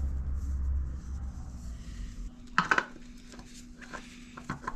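Metal clinks and knocks from handling a spin-on oil filter and threading it onto a Ford Pinto engine block by hand: one sharper knock about halfway, then a few lighter clicks.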